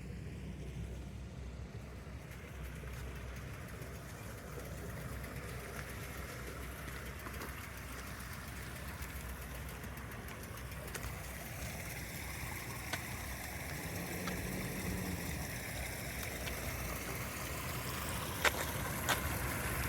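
Spring-fed brook flowing steadily, mixed with a low rumble of road traffic; the hiss grows brighter in the second half, with a few sharp clicks near the end.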